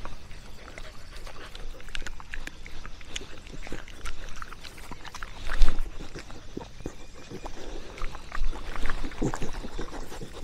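A dog breathing close to the microphone, with scattered knocks and scrapes and one louder knock a little over halfway through.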